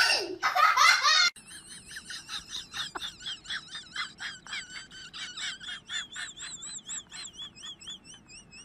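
A child's loud laughter cuts off about a second in. It is followed by a quieter run of short, high chirping notes, several a second, that waver up and down in pitch and draw out into longer warbling trills near the end.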